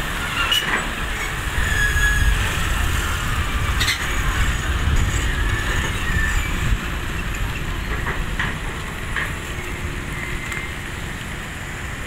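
Hydraulic excavator at work digging in a pit: a steady low engine rumble with short high metallic squeaks and a few sharp knocks from the arm and bucket.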